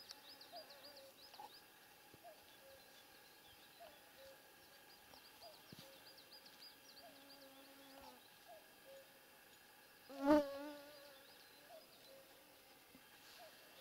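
Mosquitoes whining faintly and steadily, with one flying right past the microphone about ten seconds in as a loud, brief buzz. Small birds sing faintly in the background, high warbling phrases and short calls repeated about once a second.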